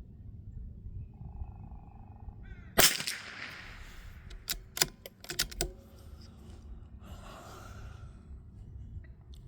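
A single .22 LR shot from a Ruger Precision Rimfire bolt-action rifle about three seconds in, ringing out briefly, followed a couple of seconds later by a quick series of sharp clicks as the bolt is worked.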